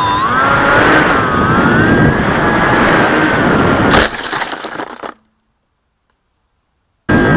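Whine of an RC glider's electric motor, wavering in pitch, over heavy wind noise on the onboard camera's microphone. About four seconds in comes a sharp crack of impact as the plane crashes. The sound then breaks up and cuts to dead silence for about two seconds before a steady whine returns near the end.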